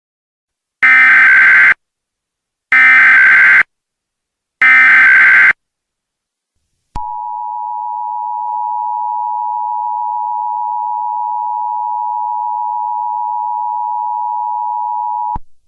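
Emergency Alert System alert tones: three short bursts of the SAME digital header, about a second each, then the steady two-tone attention signal held for about eight seconds, signalling the start of an emergency alert broadcast.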